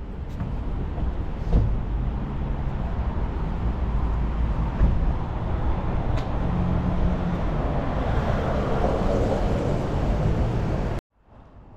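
Road traffic noise on a city street: a steady rush of passing vehicles that swells toward the end and cuts off suddenly about eleven seconds in.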